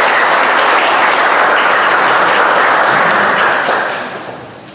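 A seated audience applauding steadily, the clapping dying away near the end.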